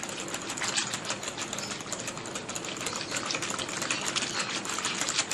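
Lassi (yogurt and milk) being beaten by hand in a jug: a fast, continuous clatter of the hand churner or whisk against the container, with the liquid sloshing.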